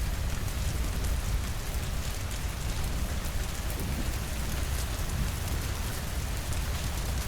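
Steady rain falling: an even hiss with a constant low rumble beneath and fine ticks of single drops on top.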